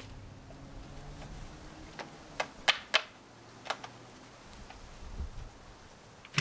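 A handful of sharp knocks and clicks, about five within two seconds, the loudest two in quick succession near the middle.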